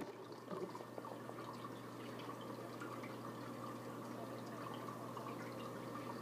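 Fish tank water bubbling and trickling, with many small scattered drips and a steady low hum underneath.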